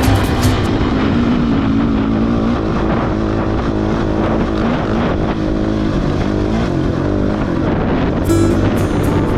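Motorcycle engine running under riding load on a trail, mixed with a music track whose drums drop out for most of the stretch and come back near the end.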